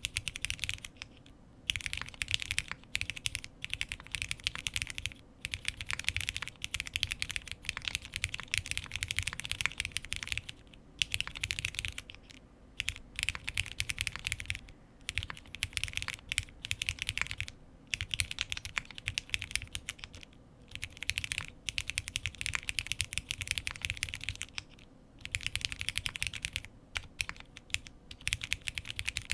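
Typing on a Space65 R3 custom mechanical keyboard with Krytox-lubed Cherry MX Black linear switches in a POM plate and GMK keycaps: rapid, continuous keystrokes in runs of a few seconds, broken by short pauses.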